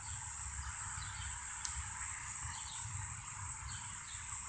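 Crickets trilling steadily: a continuous high-pitched, finely pulsing chirr, with a faint low rumble underneath.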